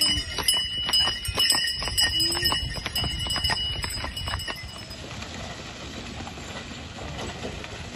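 Horse-drawn wooden cart with two horses passing close: hooves clopping and the cart and harness chains clattering in a run of sharp knocks, with a high steady ringing over them. About halfway through the clatter gives way to a quieter, even rumble as the cart moves off.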